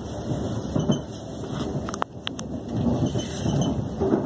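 Onboard running noise of a Class 350 Desiro electric multiple unit at speed, heard inside the carriage: wheels rumbling on the rails with irregular thumps and clatter, and a few sharp clicks about two seconds in.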